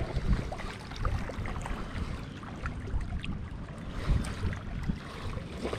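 Wind rumbling on the microphone, with irregular low knocks and faint scattered clicks.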